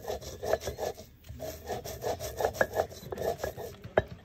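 Stone roller (mano) rubbed back and forth on a stone metate in quick, rhythmic grinding strokes, with a brief pause about a second in. Near the end there is one sharp knock of stone on stone.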